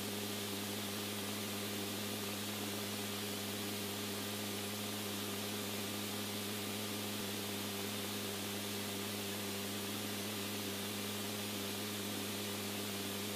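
Steady static hiss with a constant low electrical hum under it, the background of an open radio or intercom channel with no one transmitting.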